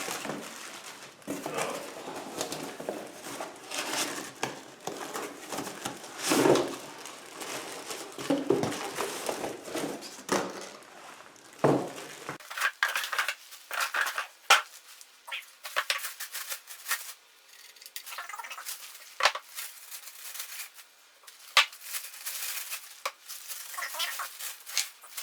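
Packaging being opened and handled: irregular rustling and crinkling with many sharp clicks and knocks.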